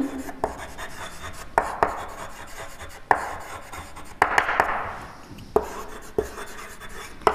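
Chalk writing on a blackboard: short scratching strokes, each starting with a sharp tap as the chalk meets the board.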